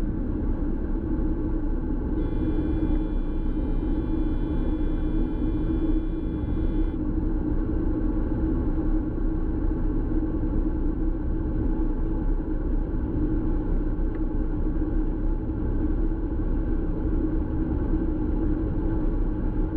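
New Holland TX66 combine harvester running steadily at working load while cutting wheat and unloading grain through its auger. A thin, steady high whine joins in about two seconds in and stops about five seconds later.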